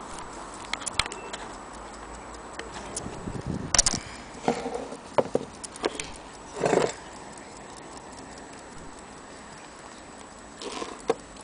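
Mechanical clocks ticking, with scattered knocks and thumps from handling, the loudest about four seconds in and again near seven seconds.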